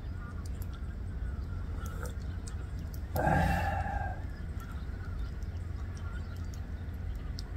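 Flock of wild geese honking in the distance, the calls faint and overlapping. About three seconds in, a louder, rougher sound rises over them for about a second.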